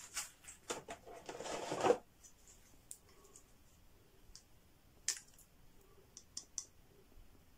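Clear plastic wrapping crinkling for about two seconds as a small USB-C charger is unwrapped, then a few light clicks and taps as the plastic charger is handled.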